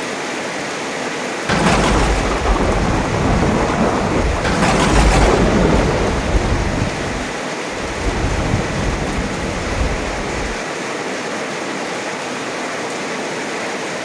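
Heavy rain falling steadily. About a second and a half in, a clap of thunder breaks in suddenly and rumbles deeply, with a second loud crack a few seconds later. The rumble then fades back to the rain after about nine seconds.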